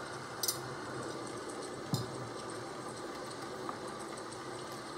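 Steady hiss of rain ambience. Over it come a light click and then a sharper knock about two seconds in, as a glass of water is set down on a wooden coaster on a desk.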